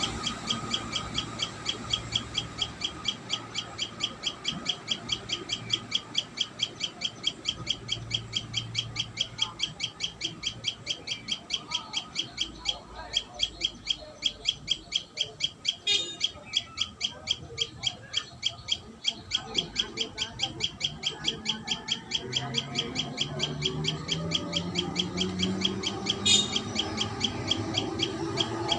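Common tailorbird giving a long run of sharp, evenly repeated chip notes, about four to five a second, with a brief break midway. Lower calls that rise in pitch join in near the end.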